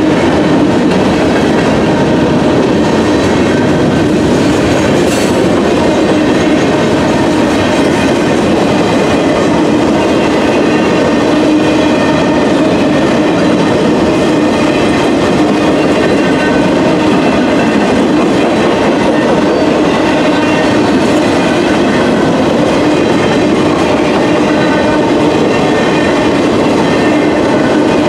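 Loaded freight train cars, covered hoppers then boxcars, rolling steadily past a grade crossing: a continuous loud rumble with the clickety-clack of wheels over the rail joints.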